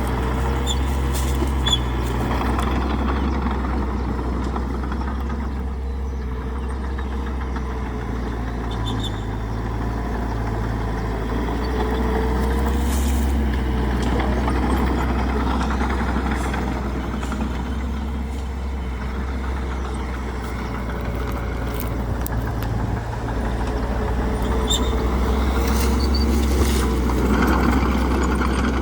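Heavy diesel engine of a bulldozer working, a steady deep drone that swells and eases slowly as the load changes, with a few short knocks.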